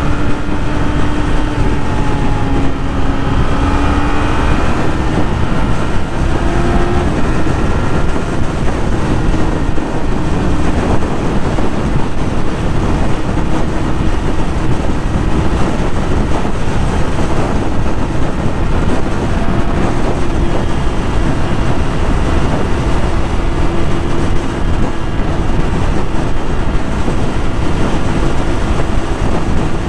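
Yamaha YZF-R6 600cc inline-four engine running at high revs while riding, its pitch climbing a little about four to seven seconds in, over a steady rushing noise.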